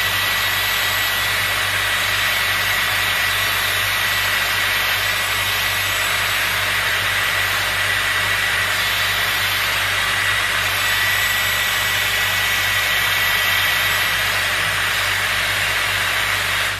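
Dyson Airwrap hair styler running with a curling barrel: a steady rush of blown air with a thin high whine from its motor. It cuts off suddenly right at the end.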